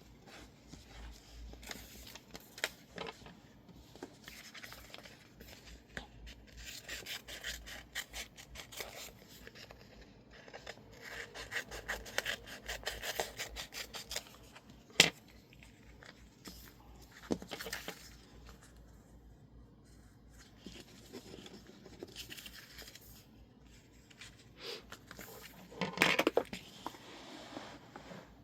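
Close-up paper-crafting sounds of illustrated masking tape and label paper being handled: intermittent rubbing, scraping and crinkling, with a sharp click about halfway through and a louder burst of handling noise near the end.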